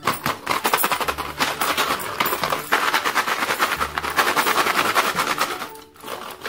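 Cadbury Gems, small sugar-coated chocolate buttons, rattling inside their cardboard box as it is shaken: a fast run of clicks, with a brief lull near the end. Background music plays underneath.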